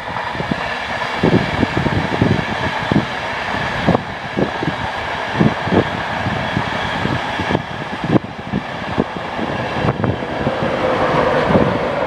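Class 91 electric locomotive and its express coaches passing at speed: a steady rush and rumble of wheels on rails, with many irregular low thumps throughout.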